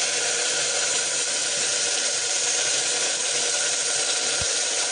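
Water poured onto hot ghee-roasted broken wheat in an aluminium pressure cooker, sizzling and steaming with a steady hiss.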